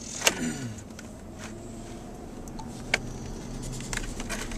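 A few sharp clicks and light handling knocks, the first followed by a short falling tone, over the low steady rumble of a car cabin.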